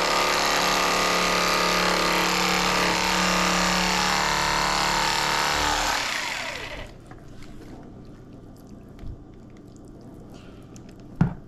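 KastKing Speed Demon electric fillet knife running with a steady motor buzz as its reciprocating blades cut a catfish fillet. The knife is switched off about six seconds in and the buzz winds down in pitch, leaving a quiet stretch with a faint knock and then a sharp click near the end.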